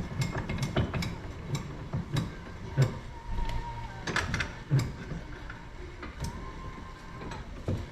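Irregular light clicks and knocks of hand tools and metal parts being handled, with a few louder knocks and a faint high whine twice.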